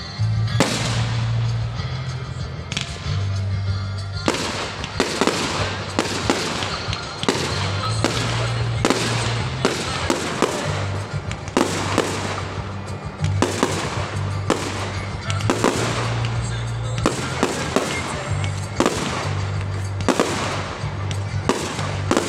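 Aerial fireworks shells bursting in quick succession: a dense run of sharp bangs, about one or two a second, starting about half a second in.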